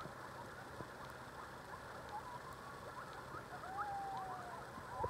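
A pack of coyotes yipping and howling: many short, overlapping yips sliding up and down in pitch, with a longer, slightly falling howl near the end.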